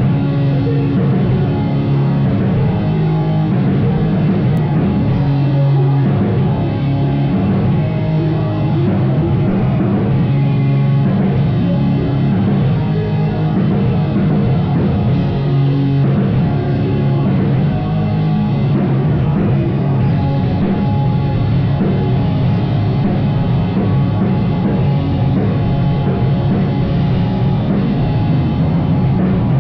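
Live rock band playing loud, with drum kit and guitars; the full band comes in right at the start after a few held notes.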